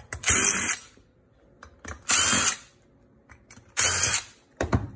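Cordless drill running in three short bursts, about two seconds apart, backing the screws out of the plastic housing of an aerobic septic air pump.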